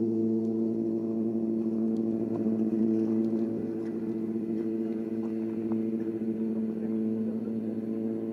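A motor vehicle's engine running steadily at an even pitch, like an engine left idling.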